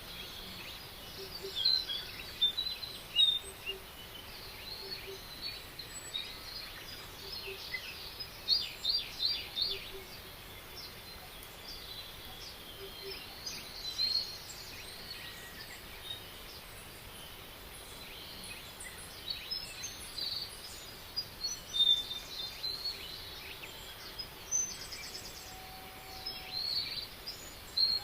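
Several birds singing and chirping over a steady background hiss: short high chirps and rapid trills come and go throughout, busiest around a quarter of the way in and again in the last third.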